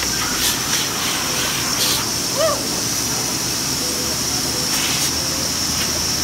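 Steady rushing background noise with a high hiss, broken by a few light clicks.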